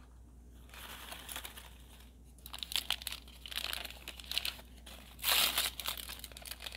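Crinkly foil-plastic wrapper packet being crumpled and pulled open by hand: irregular crackling rustles, with the loudest burst about five seconds in.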